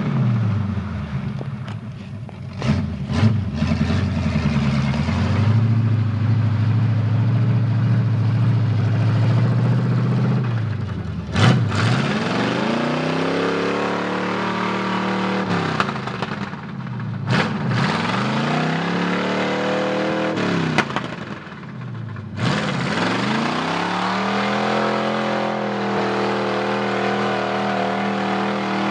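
Engine of a lifted 1976 Chevy pickup on 46-inch Baja Claw tyres, revving hard through a mud hole. The pitch falls and climbs back sharply three times, then holds a steady high rev near the end. A few sharp knocks sound in the first few seconds and one about a third of the way in.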